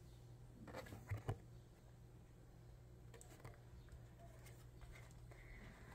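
Near silence with a few soft taps and rustles of photocards being handled by hand, a cluster about a second in and another around three seconds.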